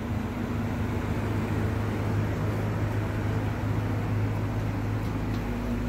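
A steady mechanical hum from a running motor: a constant low drone with a hiss over it, unchanging.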